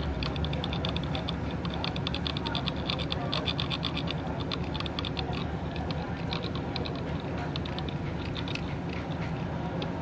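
Quick runs of light clicks and scratches as metal tweezer tips tap and scrape across the keypad contacts of a mobile phone's circuit board, thinning out after about six seconds. A steady low rumble runs underneath.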